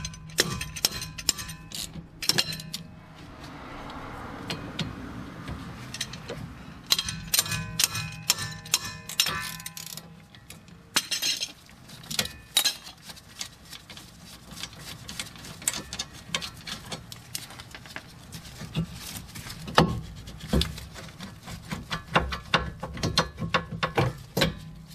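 Hand ratchet clicking in quick runs as it backs out the 14 mm brake caliper bolts, with scattered clinks and knocks of metal tools.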